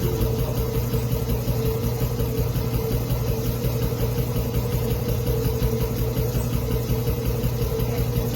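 Air compressor running steadily, pumping up its tank, with a strong low hum and a fast pulsing underneath.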